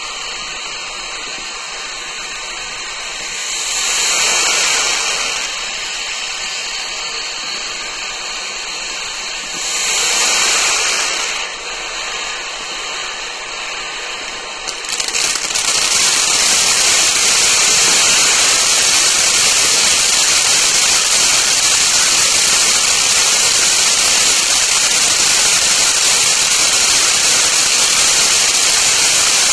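Multi-stage titanium ground fountain firework spraying sparks with a steady hiss. It swells twice, then about halfway builds into a louder, denser hiss as the next stage takes over.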